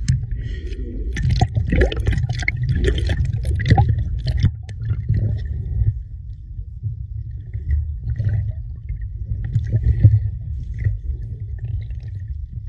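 Seawater sloshing and splashing around a phone camera held at the water surface, with a heavy low rumble. About halfway through the crisp splashes mostly fall away into a muffled underwater rumble with scattered ticks as the phone goes under.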